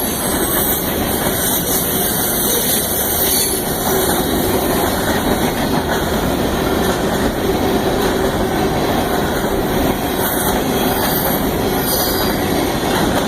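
Union Pacific train rolling past, a steady, unbroken noise of wheels on rail with no horn sounding.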